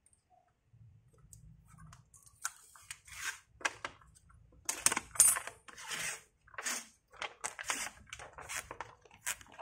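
Polarizer film being worked loose and peeled off the glass of a Samsung 40-inch LCD TV panel: a run of crackling, rustling bursts of plastic film that starts about two seconds in, over a low hum.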